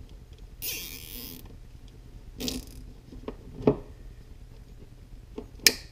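Nylon zip tie pulled tight through its ratchet: a zipping rasp about half a second in and a shorter one around two and a half seconds in. A few small clicks follow, then one sharp snip near the end as diagonal cutters cut off the tie's tail.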